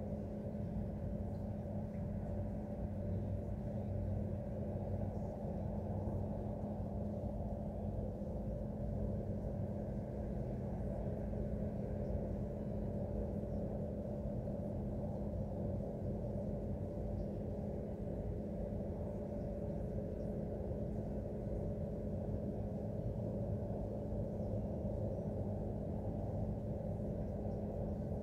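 Industrial machinery at a casting plant running with a steady engine-like roar: a low rumble with several steady humming tones on top, which the resident takes for the sound of failing equipment.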